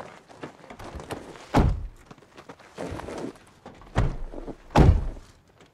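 SUV doors being shut: three heavy thunks, one about a second and a half in and two close together near the end, with the rustle of people climbing into the seats between them.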